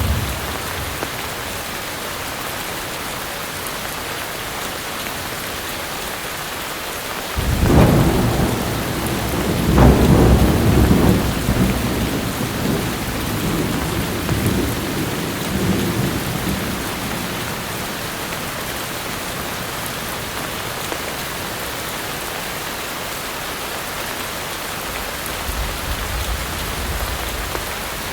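Steady heavy rain, with a thunderclap about seven seconds in whose low rumble swells twice and dies away over the following ten seconds.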